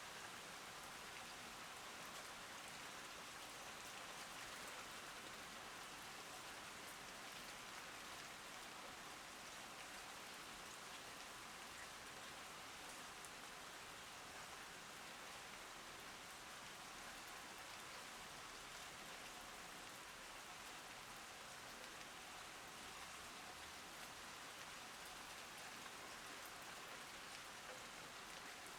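Steady rain falling: an even hiss of rain with scattered faint taps of individual drops.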